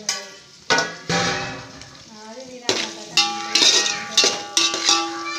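Metal spoon scraping and knocking against an aluminium pot while frying vegetables are stirred. A few knocks come at first, then a dense run of clanks from about halfway, with the pot ringing after them.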